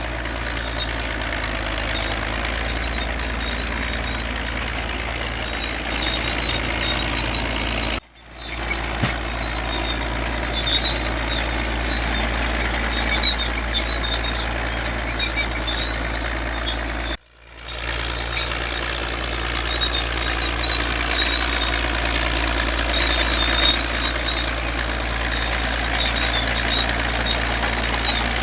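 Old bulldozer's engine running steadily under load, with scattered high squeaks over its drone. The sound breaks off abruptly twice, about 8 and 17 seconds in, where separate clips are joined.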